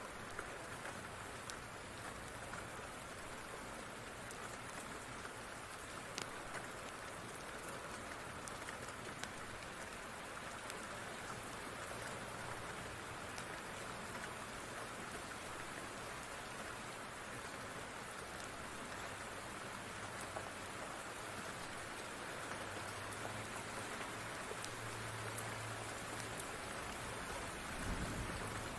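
Steady rain falling, with scattered light ticks through it and a single dull low thud near the end.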